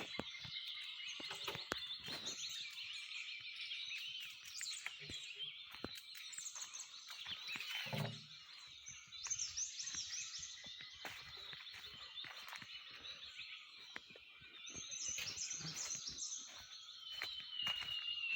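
Many birds chirping and calling at once, a dense chorus of short, gliding high calls, with a single low thump about eight seconds in.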